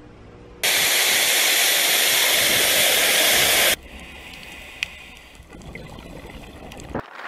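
A loud, steady rush of water noise starts suddenly and is cut off about three seconds later. Quieter, muffled underwater noise follows, with a few faint clicks.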